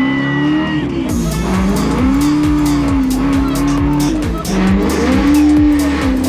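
A car engine held at high, steady revs, dipping and climbing back twice, mixed with music that carries a steady beat.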